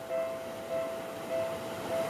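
Japanese railway level-crossing alarm sounding: a two-tone electronic ding repeating evenly, about four strikes in two seconds, warning that a train is coming.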